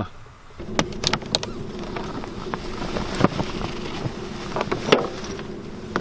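Steady low buzzing hum with scattered clicks and knocks from handling and opening a hard-shell roof-top tent on a car roof.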